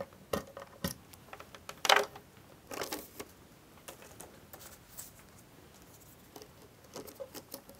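Scattered clicks and light scrapes of patch cables being unplugged from a Moog Subharmonicon's jacks and a cut-out panel overlay card being handled, with the strongest click about two seconds in and a quick run of clicks near the end.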